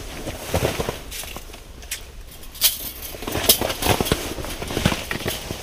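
Rustling and scattered light knocks and clicks from handling a caught walleye and gear, with clothing fabric rubbing.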